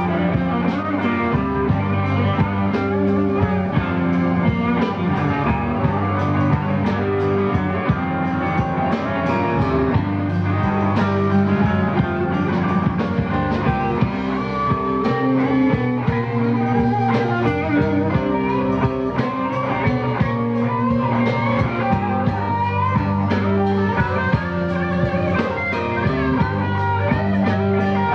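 Live blues-rock band playing: electric guitar over bass and drums, with steady drum hits.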